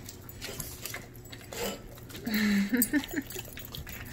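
Dogs licking and smacking at canned pumpkin, with wet clicking mouth sounds. About two seconds in comes a short, low vocal sound that bends in pitch.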